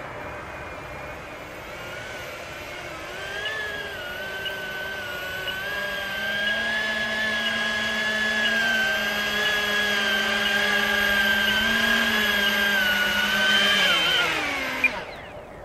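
The twin electric motors and propellers of an E-flite V-22 Osprey RC tiltrotor whine steadily and grow louder as the model comes close and hovers. Near the end the motors wind down with a falling pitch and cut out after it lands, with one short sharp click just before they stop.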